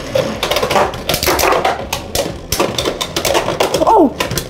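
Beyblade X spinning tops clashing in a stadium: a rapid, irregular clatter of hard clacks, with a short excited shout near the end.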